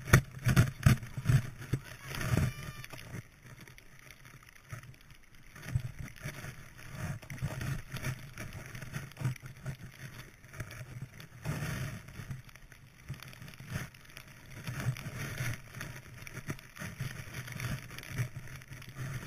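Skiing through deep powder snow: the rush of skis through the snow and wind buffeting the microphone of a camera worn by the skier, in rough irregular surges every second or two, strongest in the first few seconds.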